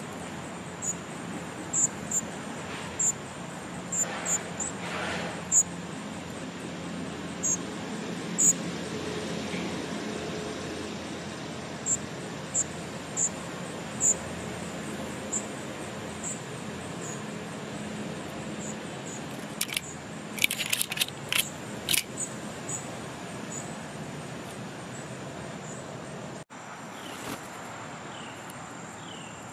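Songbirds chirping: a string of short, very high chips roughly once a second, then a brief flurry of sharp clicks and a few short falling calls near the end, over a steady low hum of distant traffic.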